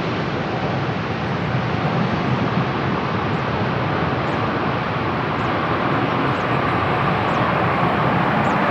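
Boeing 777-200ER jet engines at takeoff power, a loud, steady rushing roar.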